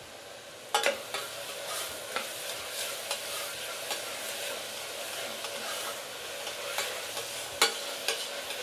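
Sliced onions and green chillies frying in hot oil in a pan, sizzling steadily while a spatula stirs them, with sharp knocks of the spatula against the pan about a second in and again near the end. The onions are being fried with salt toward golden.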